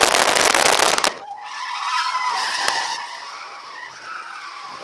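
Ford AU Falcon's tyres squealing through a drift, heard from inside the cabin. The squeal wavers in pitch and is strongest a couple of seconds in, then eases off. It follows a loud rushing noise in the first second.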